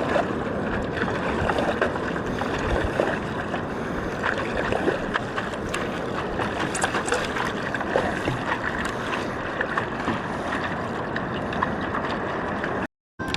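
Water sloshing and splashing around a stand-up paddleboard as it moves across the sea, a steady wash with small splashes. The sound cuts out for a moment near the end.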